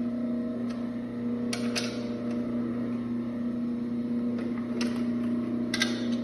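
Electric motor of a DF01A bean and rice stone grinder running with a steady hum, its stones gapped open and not yet touching. A few short sharp clicks come from the wrench on the stone-gap adjusting nuts.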